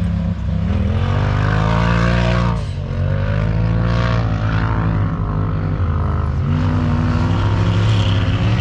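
Off-road race vehicle engine running hard and loud, its pitch climbing and then dropping back about three times as the throttle comes on and off.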